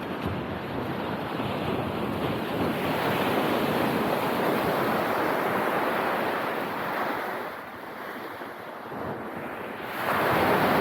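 Ocean surf breaking and washing up the beach in a steady rush that rises and falls. The surf swells about two seconds in, eases off a little past the middle, and a fresh wave surges in near the end.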